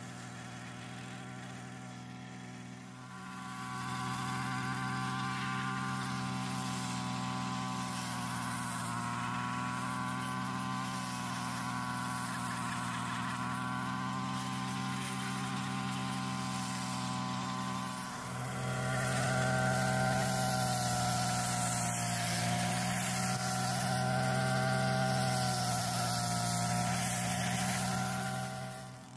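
An engine running steadily, picking up a few seconds in and again about two-thirds of the way through, then dropping away at the very end.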